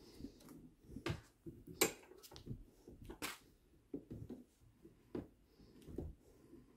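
A 1/2-28 threading die turned by hand in a die stock on the steel barrel of a Savage Axis II rifle: irregular sharp metallic clicks and creaks as the die cuts the thread and is worked back and forth. The loudest click comes a little under two seconds in.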